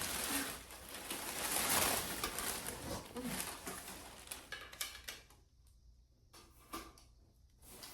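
Rustling and knocking as bar stool parts and their packaging are handled, loudest for the first few seconds, then thinning to a few scattered clicks and near quiet.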